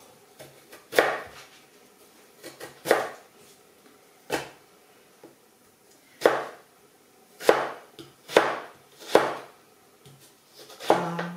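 Knife chopping down onto a cutting board: about nine separate sharp knocks, spaced unevenly about a second apart.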